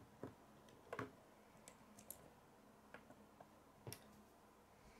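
Faint, scattered clicks and taps of plastic K'nex pieces being handled and pressed together, about half a dozen over the few seconds, the loudest about a second in.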